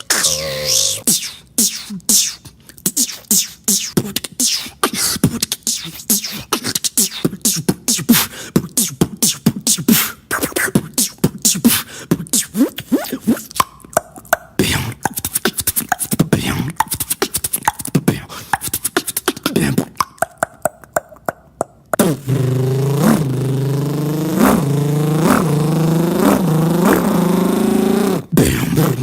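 Beatboxing: for most of the time, rapid mouth clicks and percussive beats. From about two-thirds of the way in, a continuous buzzing vocal drone with repeated short rising swoops takes over, a mouth imitation of a car engine revving.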